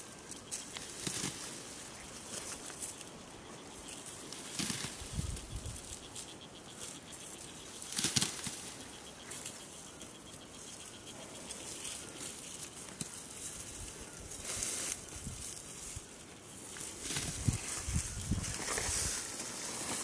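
Dry wheat stalks rustling and swishing as the crop is handled during the harvest, in irregular strokes, the loudest about eight seconds in.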